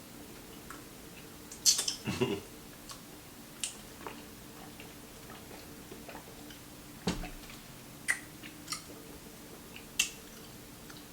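Scattered crisp crunches and mouth clicks of someone biting and chewing crispy fried chicken, a few at a time with gaps between, over a faint steady hum.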